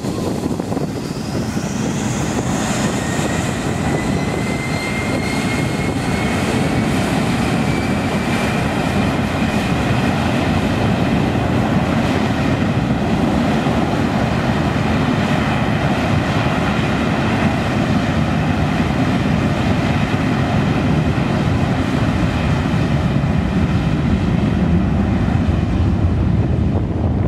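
Gulfstream G450 business jet's twin Rolls-Royce Tay turbofans spooling up as it moves off, a whine rising in pitch over the first several seconds, then loud, steady jet engine noise.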